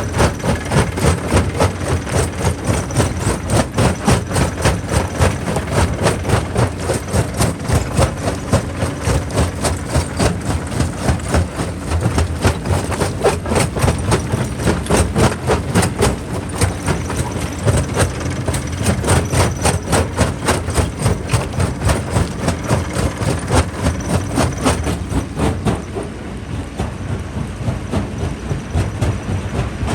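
Quarry jaw crusher crushing rock: a steady run of cracks and knocks, about two or three a second, over the low rumble of the machine, easing a little near the end.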